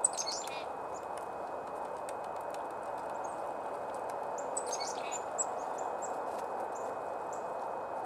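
Small songbirds calling: a quick run of high, falling notes at the very start and again about halfway through, then scattered short chips. Faint light taps as a red-bellied woodpecker pecks at seeds in a hollow wooden stump, over a steady outdoor background hiss.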